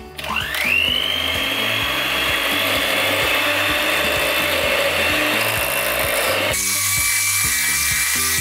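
Electric hand mixer switched on, its motor whine rising quickly to a steady high pitch as the beaters churn a thick batter in a glass bowl. Near the end the whine drops to a slightly lower pitch.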